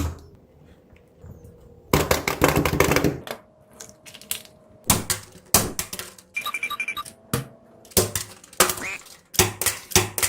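A quick run of clicks and taps, then single sharp clicks spaced out, with a short bright chime-like jingle about six and a half seconds in.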